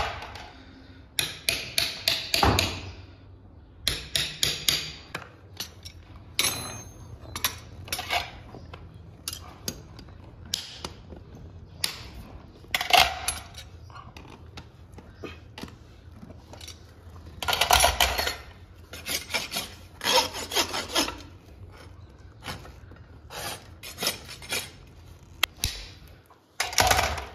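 Farrier's rasp filing a horse's hoof in several bursts of quick scraping strokes, with occasional sharp knocks between the bursts.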